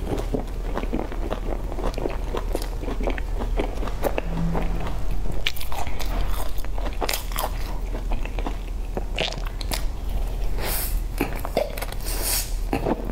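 Close-up eating sounds of crumb-topped, cream-filled pastry: irregular bites and crunches of the crumbly crust with chewing between them, over a steady low hum.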